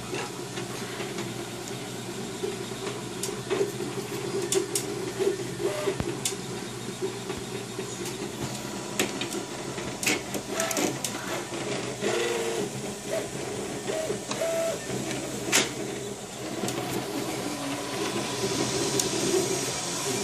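FlashForge dual-extruder 3D printer printing: its stepper motors sing in short tones that keep changing pitch as the print head and bed move, over the steady hiss of its cooling fans, with a few sharp clicks.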